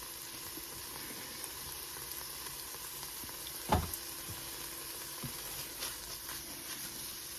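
Onion and garlic sizzling steadily in olive oil in a soup pot, with one knock about halfway through.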